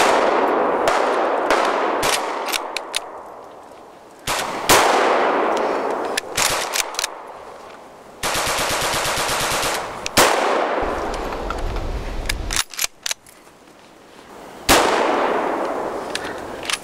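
Gunfire in a firefight. Four heavy rifle shots ring out about four seconds apart, each with a long echoing decay, and lighter shots crack between them. About halfway through comes a rapid automatic burst of roughly two seconds.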